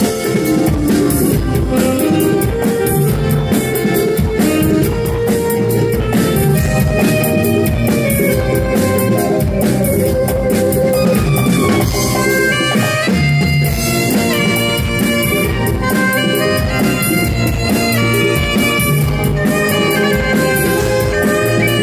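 Live band playing loud through a stage PA: a saxophone plays the melody over drum kit, percussion, keyboards and electric guitar, with a steady beat.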